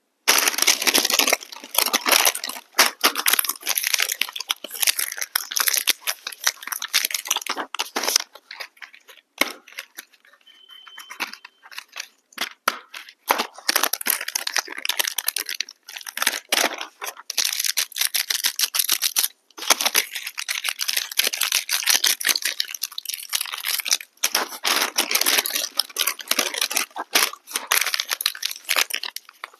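Plastic snack and chocolate wrappers crinkling and tearing in rapid, crackly bursts as they are handled and opened, with a quieter pause about ten seconds in.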